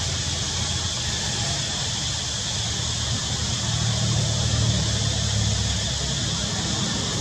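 Steady rushing outdoor background noise with a low rumble underneath, swelling slightly about two-thirds of the way through.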